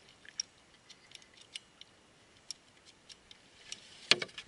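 Quiet with the trolling motor stopped: scattered faint, irregular light clicks and ticks, and one louder knock about four seconds in.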